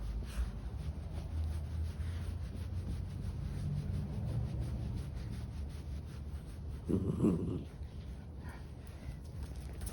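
Senior dog vocalizing: a low, drawn-out grumble for a few seconds, then a louder, short vocal sound about seven seconds in.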